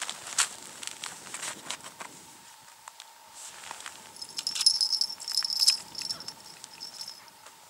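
Crunching of snow as a person kneels at an ice hole, then clicking and rattling as the ice-fishing rig is handled, with a thin high ringing for about two seconds in the middle.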